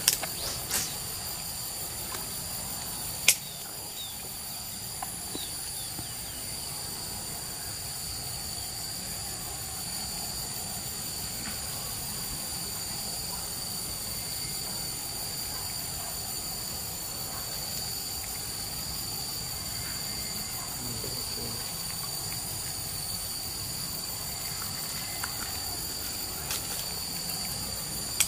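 Steady chorus of insects in a forest swamp, a high-pitched drone of several even tones, with a few faint ticks and one sharp click about three seconds in.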